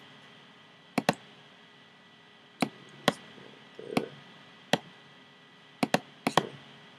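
Computer mouse clicking: about nine sharp clicks, some single and some as quick double-clicks, over a faint steady background hiss.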